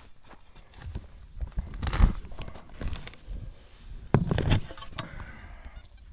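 Crunching and rustling of footsteps and tool handling on dry, grassy ground, with two louder crunches about two and four seconds in.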